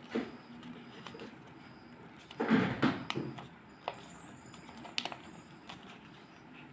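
A folded paper boat being handled and creased by hand: paper rustling and crinkling with a few sharp clicks, and a louder rustle about two and a half seconds in.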